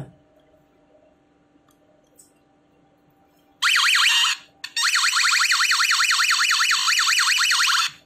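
Battery-powered door alarm's electronic siren going off, a loud wail sweeping rapidly up and down about six times a second; it starts about three and a half seconds in, breaks off for a moment, and stops just at the end. It is sounding on freshly replaced batteries, a sign that the repair worked.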